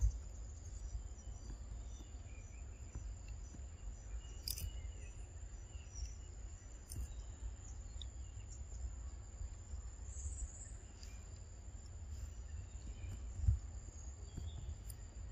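Forest ambience: a steady high-pitched drone of insects over a low rumble, with a few faint clicks and one dull thump near the end.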